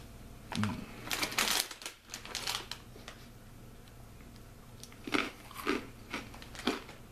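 The foil snack bag crinkles as it is handled. Then hard, crunchy pretzel pieces are bitten and chewed, a few crisp crunches about half a second apart in the last two seconds.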